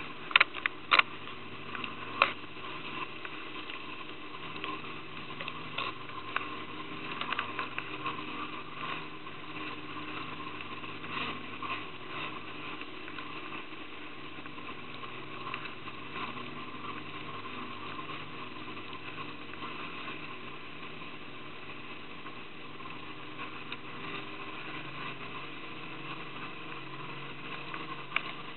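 A motorboat's engine running steadily, with water splashing around the boat. There are a few sharp knocks in the first couple of seconds and lighter ticks and splashes over the following ten seconds.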